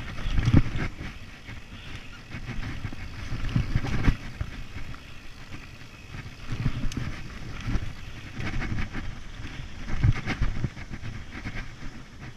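Mountain bike riding a dirt singletrack: wind rushing over the camera microphone, with the bike rattling and clattering over bumps and rumbling surges as it hits rough ground, loudest about half a second in, around four seconds and around ten seconds.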